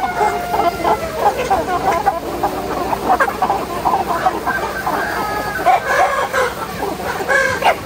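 A flock of chickens clucking and calling, many birds at once with overlapping calls.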